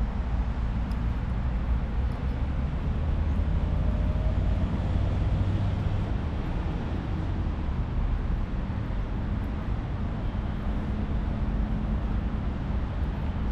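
Steady low rumble of road traffic: outdoor city ambience with engines and tyres blending into one continuous drone.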